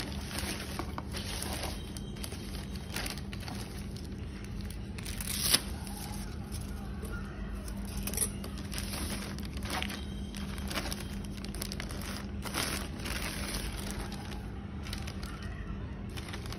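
Thin plastic poly mailer bag crinkling and rustling as a box is packed into it and its self-seal adhesive flap is pressed shut, with sharper crackles about five and a half and eight seconds in.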